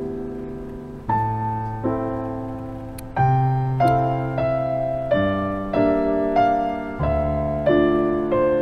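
Slow, gentle piano music: notes and chords struck every second or less, each ringing and fading away.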